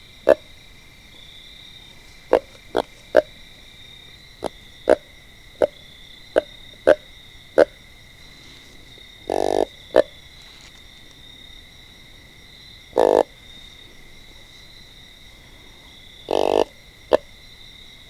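Deer grunt call being blown in a series of short grunts at uneven intervals, with three longer drawn-out grunts, to lure deer. Insects trill steadily underneath.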